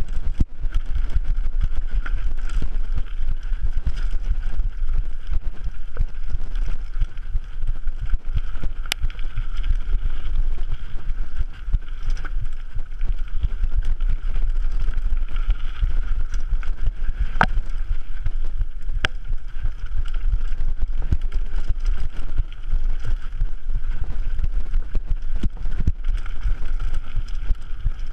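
A mountain bike ridden fast down a gravel forest trail, heard through an action camera: wind buffeting the microphone and a steady rumble from the tyres and the rattling bike. A few sharp clicks or knocks stand out, the clearest about nine seconds in and about seventeen seconds in.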